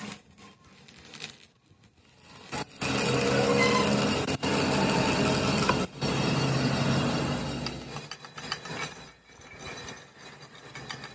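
Electric arc welding on a steel axle housing: the arc crackles and hisses steadily for about five seconds, with two brief breaks, then stops. Near the end come lighter scattered taps and clinks as a chipping hammer knocks slag off the fresh weld.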